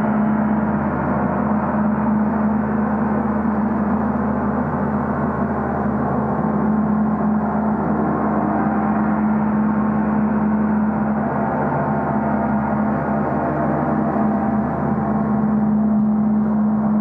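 Portable gong sounding continuously: a dense, steady wash of ringing overtones over one strong low tone, with no single strike standing out.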